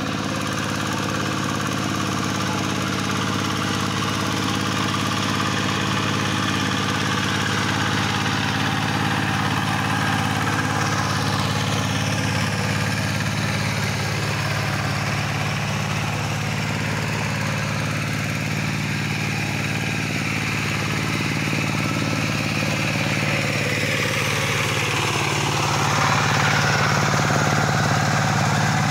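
Two-wheel hand tractor's single-cylinder diesel engine running steadily as it tills a flooded rice paddy, getting a little louder near the end.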